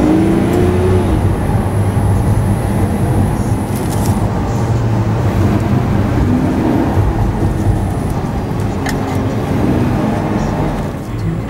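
Lamborghini Aventador's V12 engine heard from inside the cabin, running under light throttle in slow traffic, its pitch rising and falling a few times as the car pulls away and eases off. It gets quieter near the end as the car slows.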